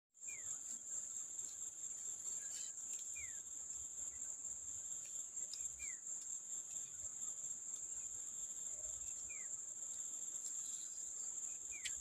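Steady high-pitched drone of insects in the forest, with a short falling whistle call, likely a bird, repeated about every three seconds.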